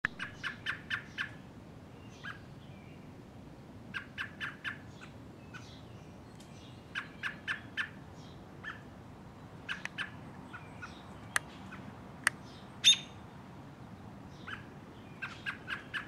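American robin giving short, sharp calls in quick runs of four to six notes, repeated several times. Two sharp clicks and one louder call come about two-thirds of the way through.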